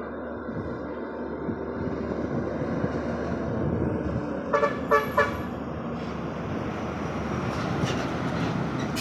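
Three short vehicle horn toots about halfway through, over the noise of a heavy vehicle's engine and tyres that grows steadily louder as it draws closer.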